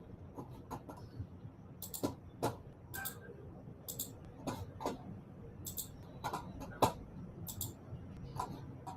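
Computer mouse clicking: faint, irregular single clicks and quick pairs of clicks, about fifteen in all, over faint room noise.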